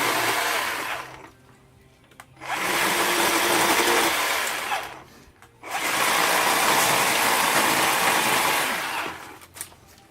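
WORX 40-volt battery chainsaw's electric motor and chain whirring in three bursts: a short one at the start, one of about two and a half seconds, then a longer one of about four seconds. Each burst starts and stops abruptly.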